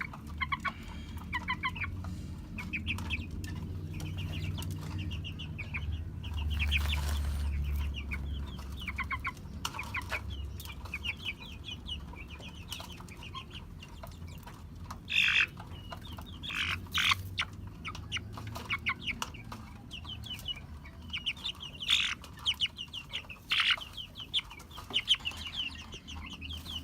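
Chicken clucking softly and repeatedly, with several sharp clicks or taps in the second half.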